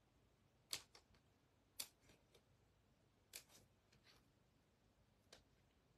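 Small craft scissors snipping through kraft cardstock: about five short, sharp snips, roughly a second apart.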